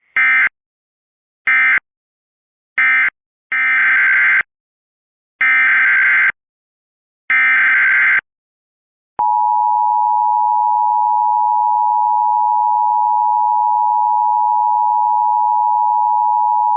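Emergency Alert System tones. First come three short screeching SAME data bursts, the end-of-message code that closes one alert, and then three longer data bursts, the header of the next alert. About nine seconds in, the steady two-tone EAS attention signal (853 and 960 Hz) begins and holds for about eight seconds.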